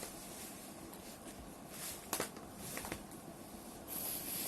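CDs and their packaging being handled: a few light clicks and soft rustling, with a louder rustle near the end.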